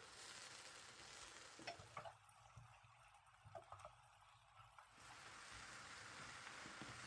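Faint sizzling of zucchini slices frying in a pan, with a wooden spatula clicking and scraping against the pan a few times in the middle as the slices are stirred.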